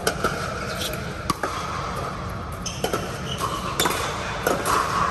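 Pickleball paddles hitting a hard plastic pickleball during a rally: a series of sharp pops roughly a second apart, over a steady low hum and people talking.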